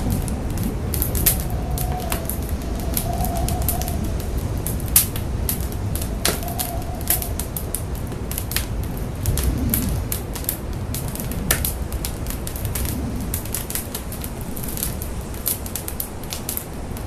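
Large factory fire burning: a steady low rumble with frequent irregular sharp crackles and pops.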